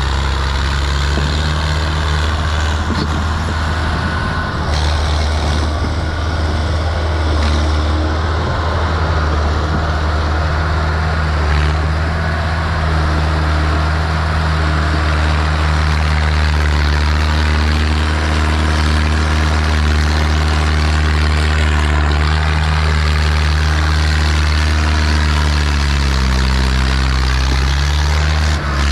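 Mahindra Arjun 555 DI tractor's diesel engine working hard under heavy load as it pulls a trolley full of soil. The engine note holds steady, then dips and comes back up near the end.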